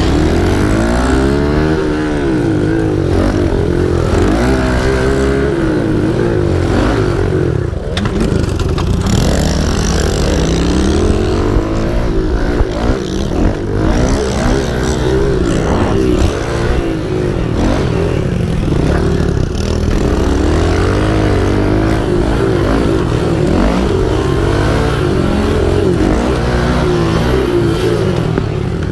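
Kawasaki KLX 110 pit bike's small four-stroke single-cylinder engine being ridden hard, its revs rising and falling over and over as the throttle is opened and closed.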